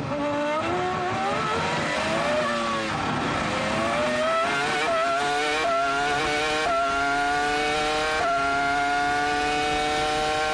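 Williams-BMW Formula 1 car's BMW V10 heard onboard. The revs rise and waver, dip briefly, then climb hard with four quick upshifts, the pitch dropping a little at each shift and rising again.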